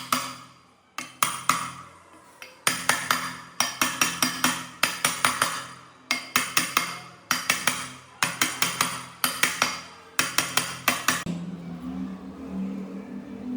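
A hammer striking metal in quick bursts of about five or six ringing blows, with short pauses between bursts. Near the end the hammering stops and a quieter, steady low hum is left.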